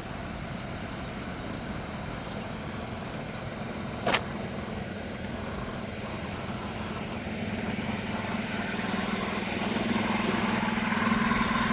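A steady engine hum that grows louder over the last few seconds, over a constant outdoor background noise, with one sharp knock about four seconds in.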